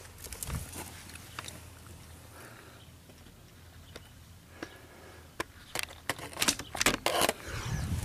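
Footsteps on fire debris: scattered clicks early on, then a quick run of louder crunching clicks in the second half.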